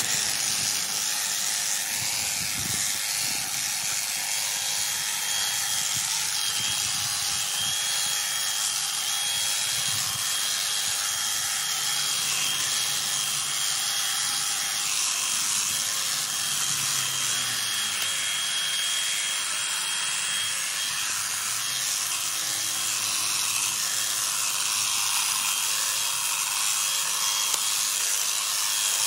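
Honda HHH 36 AXB 36-volt cordless hedge trimmer running steadily, its reciprocating blades cutting into the hedge: an even hiss with a thin, steady high whine.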